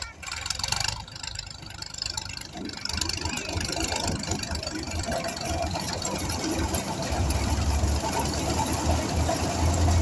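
Tractor-driven wheat thresher running as wheat is fed in: a steady mechanical noise of engine and threshing drum. A deep engine drone comes in about three seconds in and grows louder toward the end.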